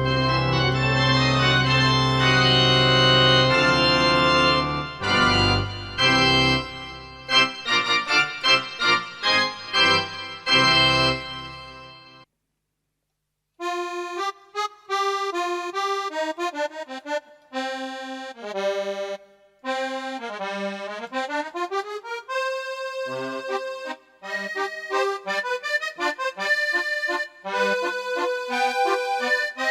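Casio electronic keyboard playing an organ tone: held chords over a bass, then short stabbed chords, stopping about twelve seconds in. After a second of silence it plays an accordion tone: a quick melody with runs that sweep down and back up.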